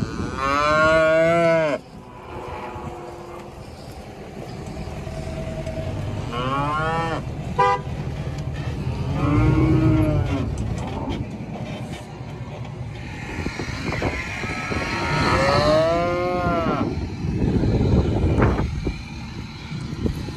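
Cattle mooing: four long, bellowing calls, each rising and falling in pitch, the first and loudest right at the start, the others about 7, 10 and 16 seconds in, over a steady low rumble.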